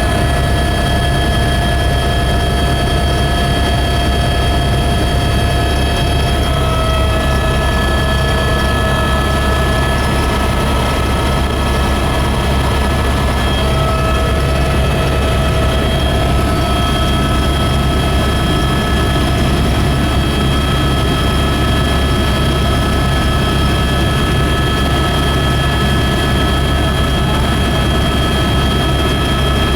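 Helicopter engine and rotor noise heard from inside the cabin, a loud steady drone with a deep hum and a few high steady whines that shift slightly in pitch now and then.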